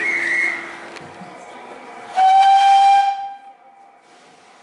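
A steam locomotive's whistle sounds one steady blast of about a second, with steam hiss, about two seconds in. A short warbling whistle comes just before it, right at the start.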